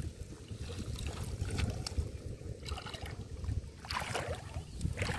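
Shallow water trickling and sloshing around a person wading in flooded paddy, with a couple of louder swishes near the end, over a steady low rumble of wind on the microphone.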